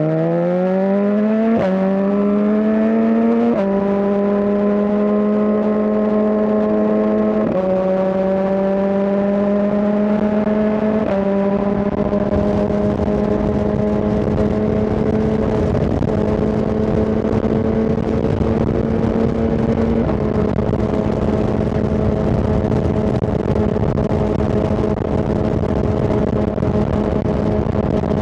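Suzuki GSX-R1000R inline-four engine pulling up through the gears, its pitch climbing and then dropping with each of four quick upshifts. After that it holds a steady cruise with growing wind noise.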